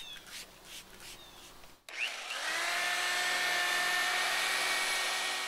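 Electric rotary buffer-polisher starting about two seconds in, its motor whine rising as it spins up and then running steady at speed.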